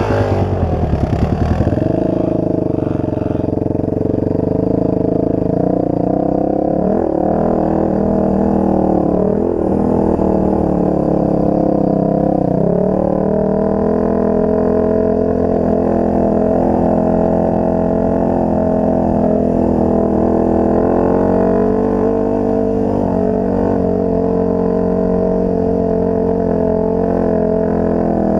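Enduro motorcycle engine running under steady throttle, a continuous drone. The engine note dips and climbs back three times in the first half as the revs change, then holds steady.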